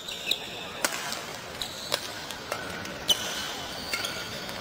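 Badminton rally: rackets strike the shuttlecock back and forth with sharp cracks about once a second. Short high squeaks of court shoes on the synthetic floor come in between.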